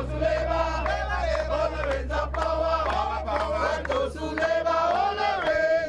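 A crowd of protesters chanting together in unison, the voices held on long, wavering notes, over a low steady hum.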